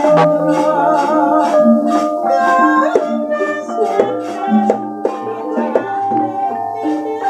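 Javanese gamelan playing: players strike the bronze keys of saron metallophones in a steady run of notes, and the pitches ring on under a wavering melodic line. Low drum strokes come now and then.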